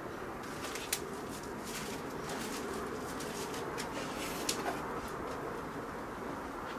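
A pigeon cooing over a steady outdoor background hum, with a few light clicks and knocks from equipment being handled, the sharpest about a second in.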